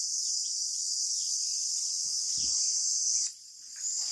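Steady, high-pitched chorus of insects, which drops out for about half a second a little past three seconds in before resuming.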